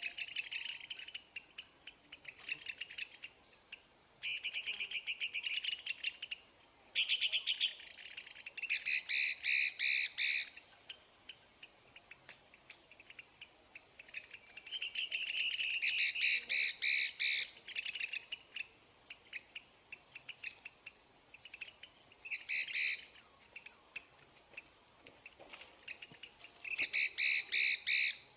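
Bạch mi songbird singing in bursts of rapid, fast-repeated notes, each phrase one to three seconds long with short pauses between, as it is worked up into form, with a faint steady insect drone underneath.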